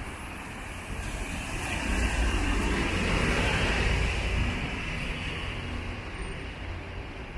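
Traffic on a rain-wet avenue: a road vehicle passes close by, its rumble and tyre hiss swelling for a couple of seconds before fading back into the steady traffic noise.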